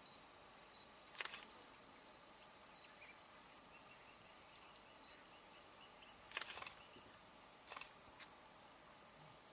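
Near silence, with a faint steady hiss and a few short clicks of camera handling noise, the longest about six seconds in.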